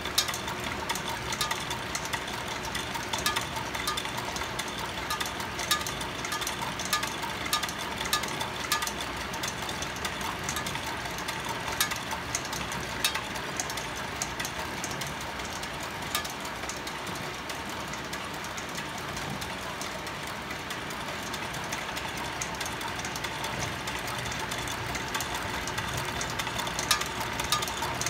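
Fan-driven wooden whirligig running: a steady whir under constant irregular clicking and clattering from its moving parts, with a carved tap-dancer figure's feet tapping on its board.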